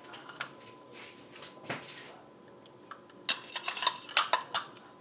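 A spoon clinking and tapping against dishes while buttermilk marinade is spooned onto seasoned flour: a few light taps, then a quick run of sharp clinks about three seconds in.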